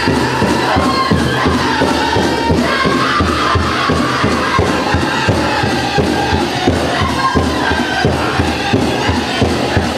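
Powwow drum group singing a chicken dance song in high voices over a steady beat on the big drum.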